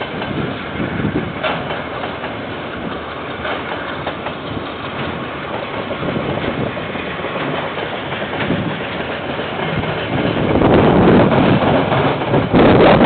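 Freight train's container wagons rolling past on the track, heard through a security camera's microphone: a steady rumble and rattle with occasional clacks of wheels over the rails. The noise grows louder about ten seconds in.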